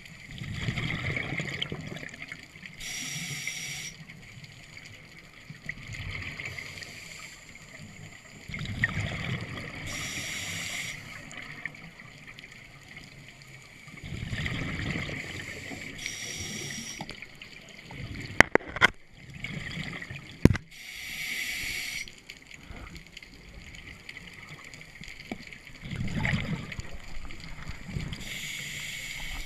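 Scuba diver breathing through a regulator underwater: a hiss on each inhalation and a gurgling rush of exhaled bubbles, repeating every five or six seconds. A few sharp clicks or knocks about two-thirds of the way through are the loudest sounds.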